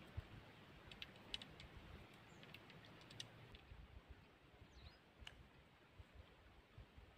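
Near silence, with a few faint scattered clicks and a brief faint chirp.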